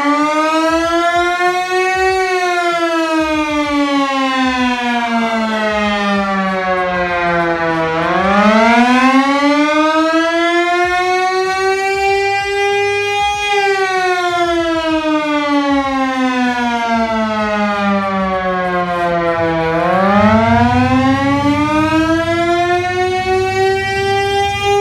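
Air-raid siren wailing, its pitch sliding slowly up and down in long sweeps, peaking twice and dipping twice. It is the warning that opens the simulated air raid.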